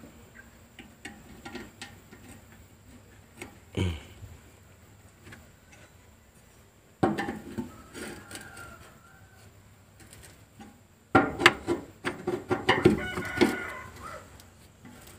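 A rooster crowing about seven seconds in and again, louder and longer, near the end. Light clicks and a knock come from hands fitting a fuel pump and its wiring into the fuel tank.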